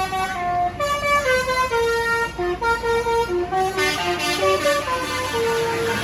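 Bus telolet basuri horn playing a quick melody: short pitched notes, one after another, stepping up and down in pitch for several seconds and stopping near the end.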